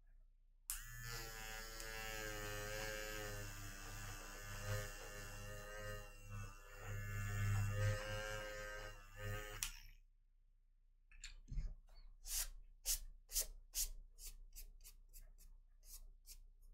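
Small electric eraser running for about nine seconds: a steady buzzing whine that starts and cuts off suddenly, wavering in loudness as it works against the paper. After a short pause, a run of short sharp ticks follows, about two to three a second.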